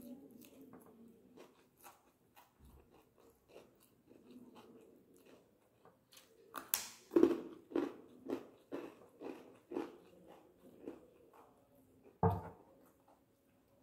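A person chewing a mouthful of idiyappam (string hoppers) and dried-fish curry close to the microphone. Wet chewing smacks come about twice a second through the middle and fade out, and a single thump sounds near the end.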